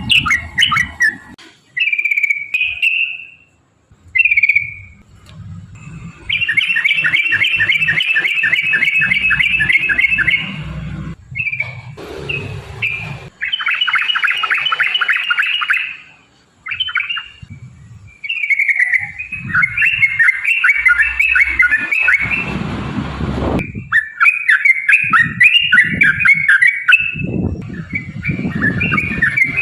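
Yellow-vented bulbul (trucukan) singing in long, fast runs of rapidly repeated chattering notes, each run lasting several seconds, broken by short whistled phrases.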